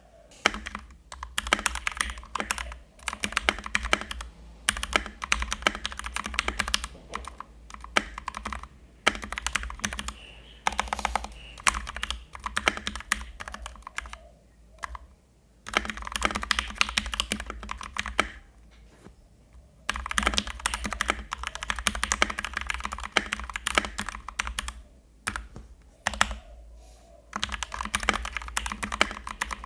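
Typing on a Keychron K2 mechanical keyboard with red linear switches: quick, steady runs of key clacks broken by a few short pauses.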